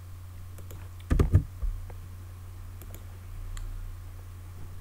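Computer keyboard keys and mouse clicks, a few light clicks with one louder knock about a second in, over a steady low hum.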